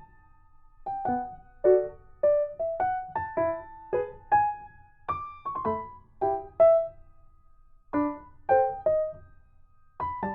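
Background music: a light melody of short, separate keyboard notes, pausing briefly about a second in and again around seven seconds.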